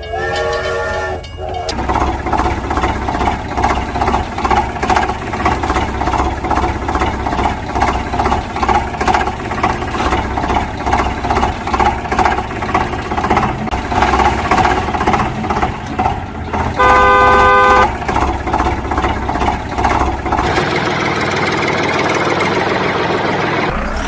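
Cartoon vehicle sound effects: a truck engine running with a steady, rhythmic chugging, broken by one horn honk lasting about a second, about seventeen seconds in. A short rising tone opens it, and near the end the engine gives way to a smoother, steady hum.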